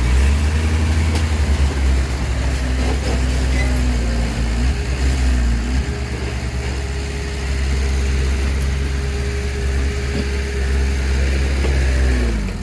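Heavy diesel earthmoving machinery engine running steadily, with a fainter pitched whine that rises and falls now and then.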